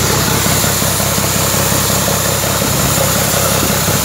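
An 8C 24-valve engine running steadily at a constant speed, with the row of belt-driven twin-cylinder air compressors beside it, giving a loud, even mechanical rumble.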